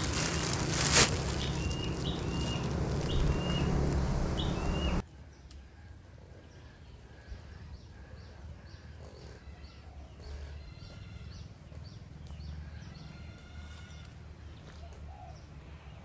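Loud rustling and crackling with a few short, repeated chirps, then about five seconds in a sudden drop to quiet outdoor ambience: birds chirping over a low steady hum.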